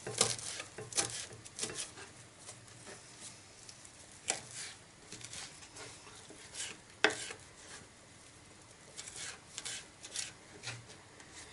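Kitchen knife chopping fresh parsley on a plastic cutting board: irregular taps and scrapes of the blade against the board, coming in clusters with a quieter pause a little past the middle.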